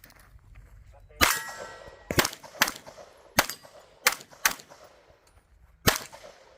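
Seven pistol shots from a 1911-style competition handgun, several fired as quick pairs about half a second apart. A metallic ringing follows the first shot for most of a second, as from a steel target being hit.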